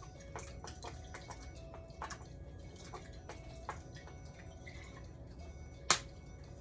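Soy sauce dripping and splashing from a bottle in small irregular drops, with one sharp click about six seconds in.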